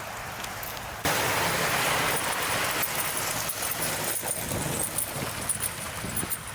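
A vehicle driving on a snowy road: steady tyre-on-slush and engine noise that starts abruptly about a second in, after a quieter hiss.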